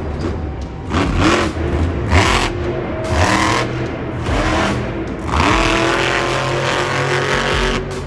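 Monster truck engine revving hard and repeatedly, its pitch climbing several times as the truck drives a freestyle run in an arena.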